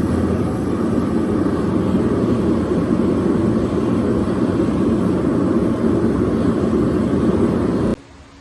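Steady loud roar of workshop equipment, with a low hum under it, cutting off abruptly near the end.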